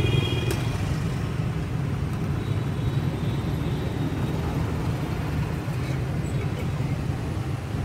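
Steady low rumble of street traffic, with a brief high tone right at the start.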